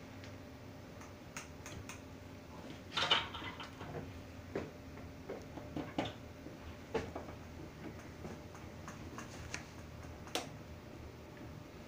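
Scattered light clicks and taps of a screwdriver, screws and small parts being handled against the metal cabinet of a fire alarm control panel as its keyboard board is fitted back in place. A small cluster of clicks comes about three seconds in, with single ones spread through the rest.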